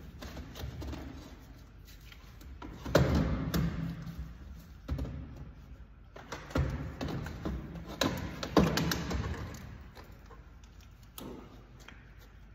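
Metal knocks and clanks as a Mazda Miata's exhaust header is worked loose and lifted out of the engine bay, with loud bangs about three, five, six and a half and eight and a half seconds in, each trailing off in a short rattle.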